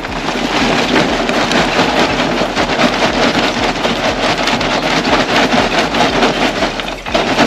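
Lump charcoal pouring from a bag into a metal grill: a continuous dense clatter of many small pieces tumbling onto each other and the grill.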